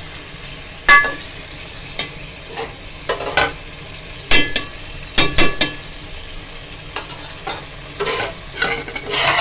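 A metal spoon stirring and mashing minced meat with tomatoes in a metal pot, clinking and scraping against the pot several times over the steady sizzle of the frying mince.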